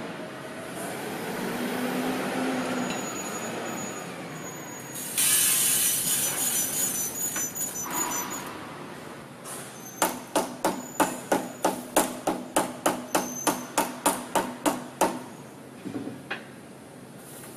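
Belt-driven steel shot life-test machine running. About five seconds in comes a sudden loud rush of steel shot being flung and rattling inside its chamber, fading over a few seconds. Then a run of about fifteen sharp metallic knocks at roughly three a second.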